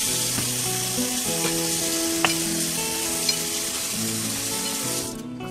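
Kitchen faucet running in a steady stream into a stainless steel sink and over a hand wetting a food processor's rubber suction feet. It is shut off near the end.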